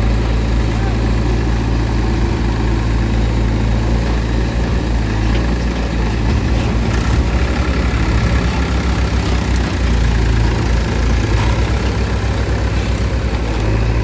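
Diesel engine of heavy machinery running steadily at low revs, close to idle, with no sharp changes in speed.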